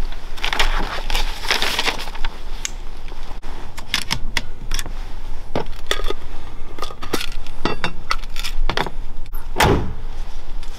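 Handling noise from a hard rifle case and gear: scattered sharp clicks, knocks and rattles as a scoped air rifle and equipment are lifted out and laid down. A single heavy thump near the end is the loudest sound.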